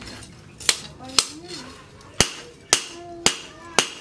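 Hand hammer striking a red-hot leaf-spring steel billhook blade on a steel post anvil: six sharp blows, mostly about half a second apart, with a one-second gap after the second.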